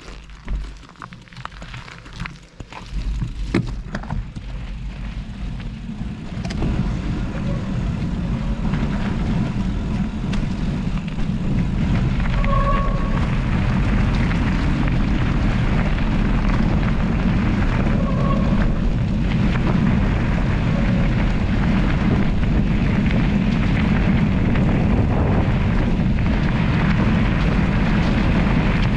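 Wind buffeting the microphone of a camera on a mountain bike, with the tyres rumbling over a gravel forest road as the bike picks up speed. A few knocks and rattles come in the first seconds; then the rushing noise builds over about ten seconds and holds steady, with two brief faint squeaks midway.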